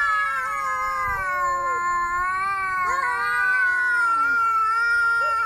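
Angry cat yowling: a long, drawn-out caterwaul held without a break, its pitch wavering and sliding up and down.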